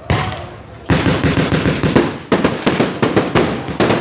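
Fireworks going off: a burst at the start, then from about a second in a dense, rapid run of overlapping loud cracks and pops, easing briefly just past halfway before the cracks pick up again.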